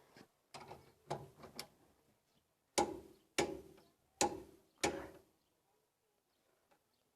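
Wrench clicking as the self-locking nut on a tie rod end's ball joint is tightened toward 60 lb-ft: a few light ratcheting clicks, then four sharp metallic clicks, each a little under a second apart.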